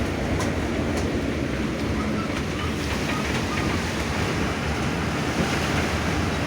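Heavy rain pouring down in a steady, dense rush, with a few sharp drop ticks here and there.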